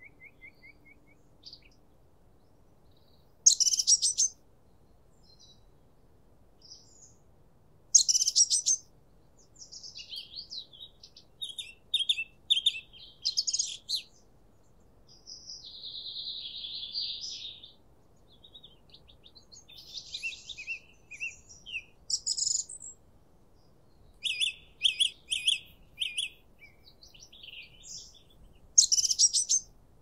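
Songbirds singing: short, high chirping phrases that come and go with pauses between them, the loudest about 3 s in, 8 s in and near the end, and a steadier buzzy trill of about two seconds midway.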